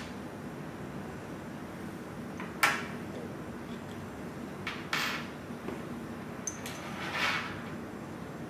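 Small bike parts and tools being handled during the quick release clamp refit: a sharp click about two and a half seconds in, then two brief scraping or sliding noises later on.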